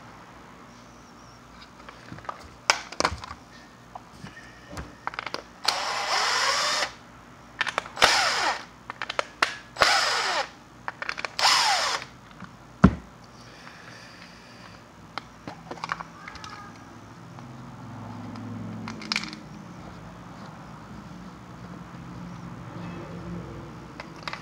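Cordless power driver backing screws out of a plastic decoy housing: four short runs of the motor a second or so apart, each winding up and then down. A few clicks and knocks of handling come before and after.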